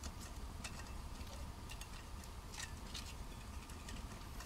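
Wood fire crackling in a small folding fire pit: faint, irregular little pops and ticks over a low steady background hiss.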